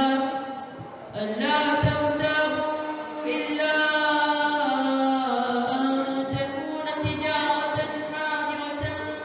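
A boy reciting the Quran in Arabic in a melodic, drawn-out chant into a microphone, holding long notes that glide up and down, with a breath pause about a second in.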